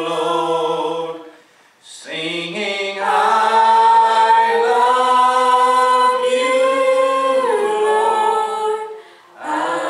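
A small worship team of women's and a man's voices singing a slow song in harmony, with long held notes and two short breaks between phrases.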